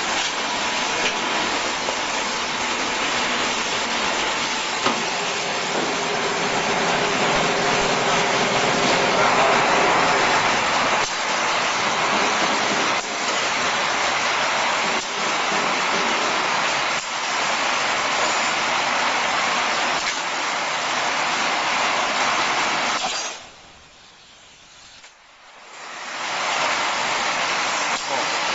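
Ultrasonic ampoule and vial washing machine running: a loud, steady spray hiss with faint humming tones and a soft knock about every two seconds. The hiss cuts out for a few seconds near the end, then starts again.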